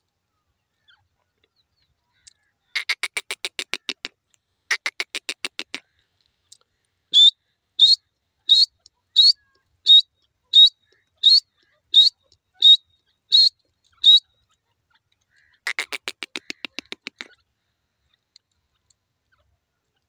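Grey francolin calling: two short runs of rapid chattering notes, then about a dozen loud, high single notes evenly spaced a little under a second apart, then another quick chattering run near the end.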